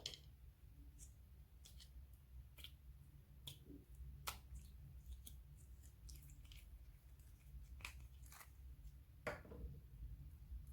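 Slime squished and stretched by hand, giving faint, irregular sticky clicks and pops, with louder pops about four seconds in and near the end.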